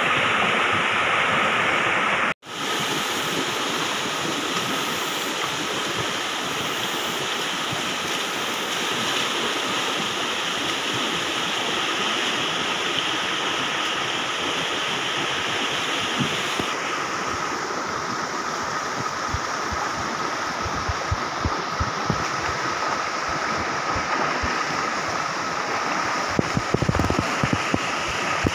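Steady rush of water running over rocks in a shallow stream, broken by an instant's silence about two seconds in.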